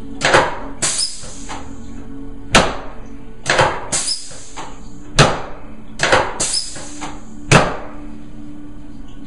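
Chiropractic drop table: four sharp clacks about two and a half seconds apart as the pelvic drop section falls under the adjuster's thrust, each followed by a cluster of smaller clicks. Soft background music runs under it.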